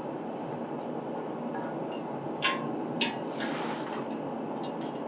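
Steady running noise of a garage heater, with two sharp knocks about two and a half and three seconds in as the engine stand's parts are handled.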